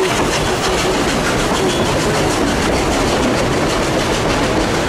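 Narrow-gauge steam train running: a loud, steady noise of the train on the rails with a quick, regular pulse.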